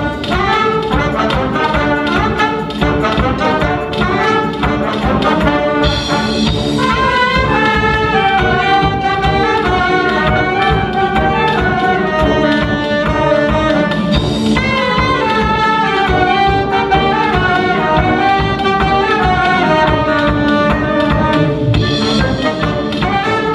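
Balkan brass band playing an instrumental tune: trumpet and saxophone carry the melody over tuba and baritone horn, acoustic guitar and a drum-kit beat.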